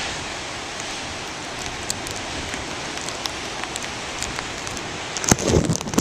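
Steady wash of heavy storm surf breaking and foaming over a rocky shore, with scattered small ticks of drops striking the camera. A few loud bumps of handling on the microphone come near the end as the camera swings.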